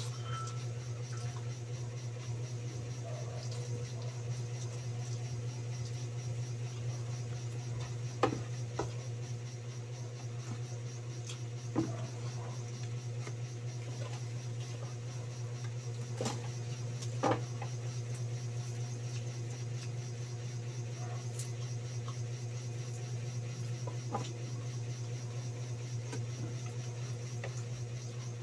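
Someone eating roast chicken by hand: a handful of short clicks and smacks from chewing and handling the food, over a steady low hum.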